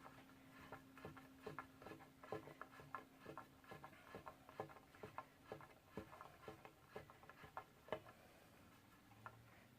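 Faint, irregular small clicks of a screw being turned by hand with a screwdriver into walnut, roughly two or three a second, with a faint steady hum that fades out about halfway through.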